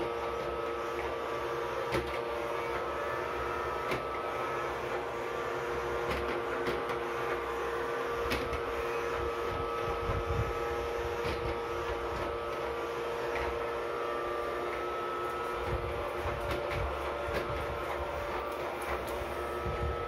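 Mondial robot vacuum cleaner running with a steady motor whine and hum while stuck under an office chair's base, with scattered short knocks and clicks as it bumps about against the chair's legs.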